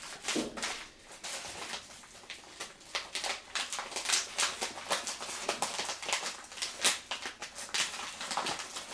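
Packaging being torn open and handled: irregular crinkling and rustling with sharp crackles.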